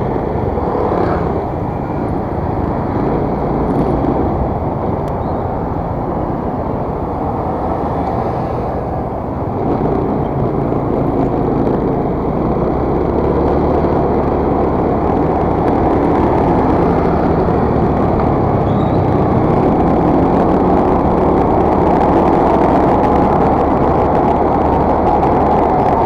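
Motor scooter riding through city traffic: its engine runs under a steady rush of road and wind noise, which grows a little louder about ten seconds in.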